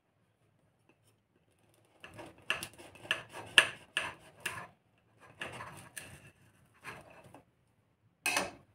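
A table knife sawing through crisp baked batter cups filled with cream, in quick crunchy strokes with the blade scraping a ceramic plate. The strokes come in runs starting about two seconds in, with one louder scrape near the end.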